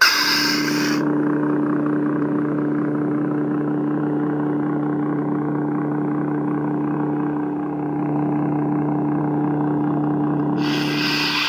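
Lightsaber sound board (Nanobiscotti V3 in a Saberforge Fallen hilt) playing its ignition sound, then a steady low electric hum, then the retraction sound near the end, which cuts off suddenly.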